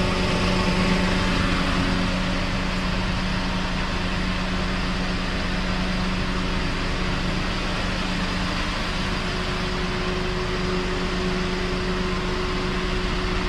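A car idling with its air conditioning running: a steady, even hum that does not change.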